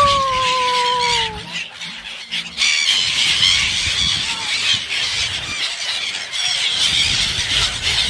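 A flock of gulls calling over water as they crowd in for food: one drawn-out falling squeal at the start, then a dense chatter of many high, overlapping calls.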